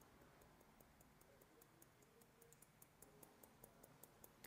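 Hairdressing scissors snipping rapidly and faintly, about five small clicks a second, as the blades close over and over while working along a held section of long hair from shorter to longer.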